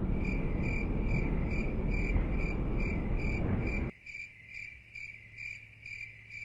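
Even, rhythmic high chirping, about two to three chirps a second. A loud low rumbling noise lies underneath and cuts off suddenly about four seconds in.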